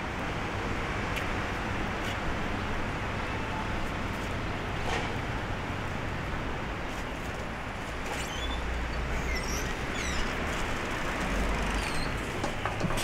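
Steady street traffic noise, with a low engine rumble that swells about eight seconds in and again near the end.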